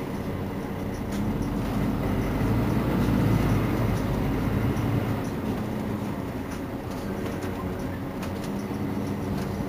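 Mercedes-Benz Citaro C2 city bus engine idling at a stop: a steady low rumble that swells louder for a few seconds from about a second in, then settles back.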